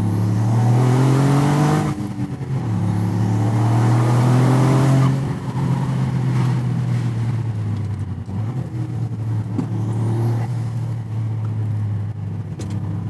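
Toyota GR Yaris's turbocharged 1.6-litre three-cylinder engine, fitted with an aftermarket intake airbox, accelerating hard twice: the engine note rises for about two seconds, drops, rises again for about three seconds, then falls back to a steadier, lower cruising note.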